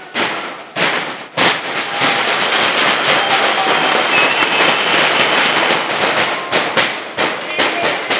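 Firecrackers going off: a few separate sharp bangs, then from about a second and a half in a dense, near-continuous crackle of rapid bangs.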